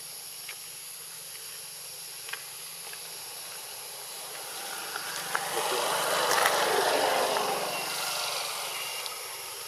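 Steady high outdoor hiss, with a broad rushing noise that swells from about four seconds in, is loudest just past the middle and fades away again.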